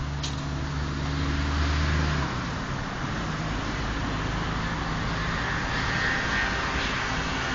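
Road traffic noise: a low engine hum that stops abruptly about two seconds in, over a steady hiss of traffic.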